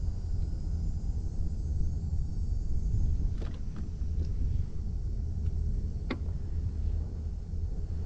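A steady low rumble, with two faint clicks a few seconds apart as a bass is handled in a landing net.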